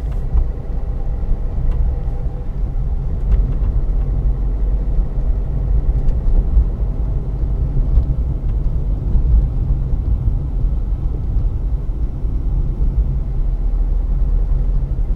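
Steady low rumble of a car driving along freshly laid asphalt, heard from inside the cabin: tyre and road noise with the engine underneath.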